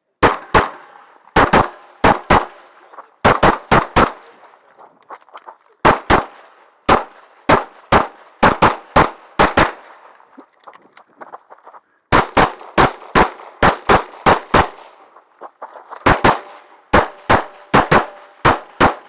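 Glock 35 .40 S&W pistol firing rapidly, mostly in quick pairs and short strings of shots, with a pause of about two seconds near the middle.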